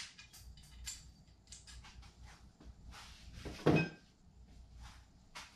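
Metal parts and tools being handled: scattered light clicks and clinks, with one louder clunk that rings briefly about three and a half seconds in.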